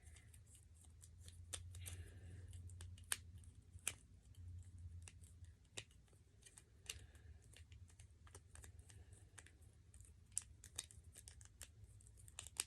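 Plastic twist snake fidget being turned by hand, its wedge segments clicking irregularly as they rotate into place; faint.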